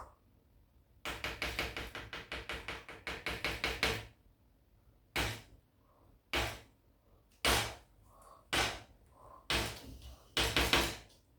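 A rapid run of sharp knocks or taps for about three seconds, then single knocks about a second apart.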